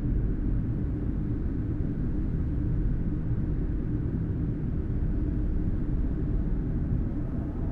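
Steady, low rumbling drone with no beat, part of an ambient electronic music track.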